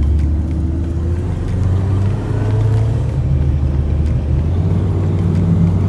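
A motor vehicle driving, with steady engine and road rumble; the engine pitch rises slowly through the first few seconds.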